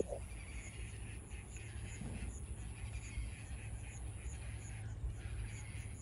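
Birds in a crowded tree colony chattering and calling in the distance, a continuous busy mix of short calls, with one short, lower and louder call right at the start. A steady low rumble runs underneath.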